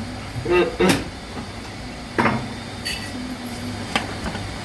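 Workshop noise: a steady low machine hum with a few sharp metal knocks and clinks, three spaced about a second or more apart.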